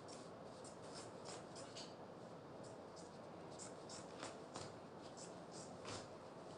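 Scissors cutting through folded fabric: a faint, irregular run of crisp snips with light rustling of the cloth.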